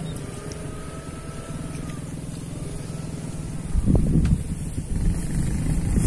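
A small motorcycle engine runs, its pitch slowly rising and falling. From about four seconds in, a louder low rumble like wind buffeting the microphone comes over it.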